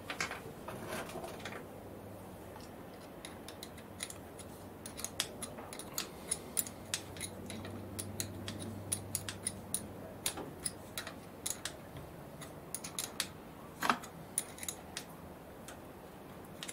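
Irregular light metallic clicks and taps of hand tools and small steel parts as the carriage lock handle is refitted on an AL51G lathe carriage. The clicks come thick and fast after a few seconds, with one sharper knock near the end.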